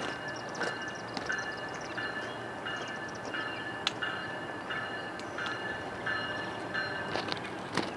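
A New Jersey Transit electric passenger train approaches, running with a steady rumble. A high tone repeats about one and a half times a second over it, and there are sharp clicks about halfway and near the end.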